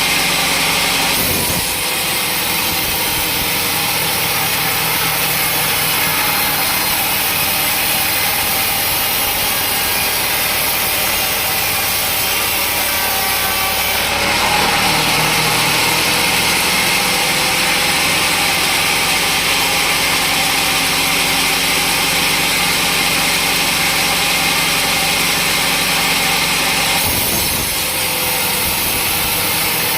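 Sawmill saw cutting through a teak log: a loud, steady sawing noise over the running motor, which changes in pitch and texture about one and a half seconds in, about halfway through and near the end.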